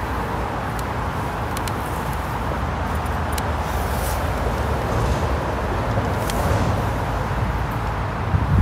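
Steady road traffic noise from a nearby main road: a continuous rumble and hiss of passing vehicles, with a few faint clicks.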